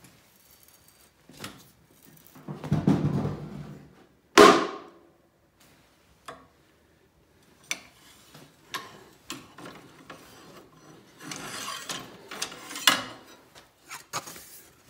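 Manual compact bender forcing a 1/4 by 1 inch hot-rolled steel flat bar round to a 90-degree bend: a rubbing, straining sound as the handle is pulled around, then a sharp metal clank about four seconds in, the loudest sound. Scattered clicks and scraping of the steel parts follow.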